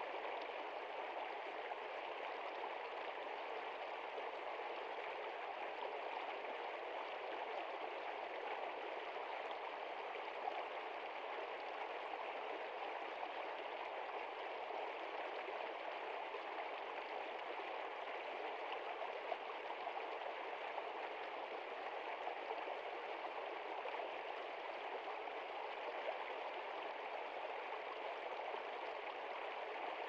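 Small shallow stream flowing over stones: a steady, even rush and burble of running water.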